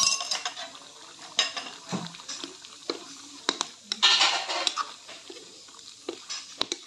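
Ladle stirring a chunky curry in a metal kadai, clinking and scraping against the pan in irregular knocks, with a denser spell of scraping about four seconds in.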